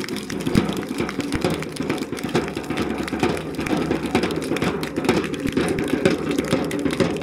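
Crowd applauding: a dense, steady patter of clapping.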